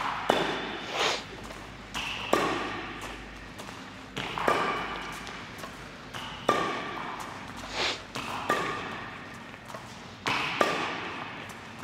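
Badminton racket hits on a shuttlecock, roughly every two seconds and sometimes two in quick succession, each a sharp crack that rings on and dies away in an echoing hall.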